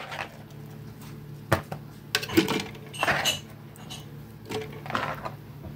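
Chunks of honeydew melon handled and dropped into a mixer-grinder jar, giving a few scattered knocks and clinks, over a steady low hum.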